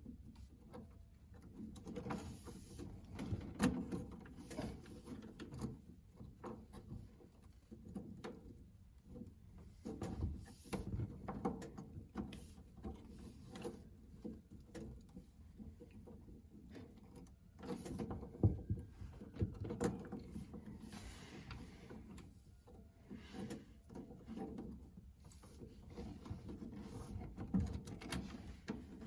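Irregular clicks, knocks and rustling of hands working on a toilet flush cone's plastic nut and pipework.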